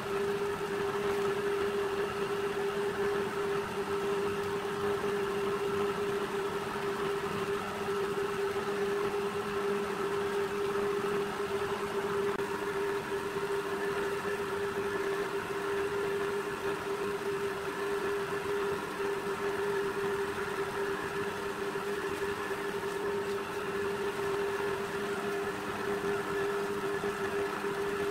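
Electric-motor-driven pipe-rolling machine running steadily with a constant hum, its belt, gears and rollers turning as a steel pipe is fed through and bent into a curve.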